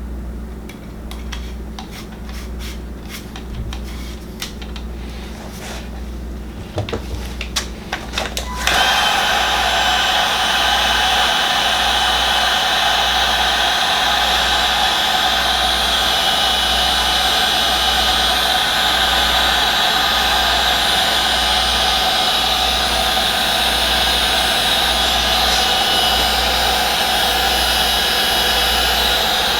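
Light handling clicks and taps, then about nine seconds in an electric heat gun switches on and runs steadily, blowing hot air to shrink heat-shrink tubing over crimped wire joints.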